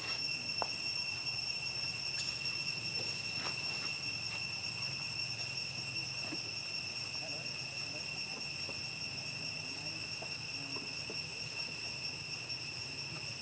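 Steady high-pitched insect drone that does not change, with a few faint scattered clicks.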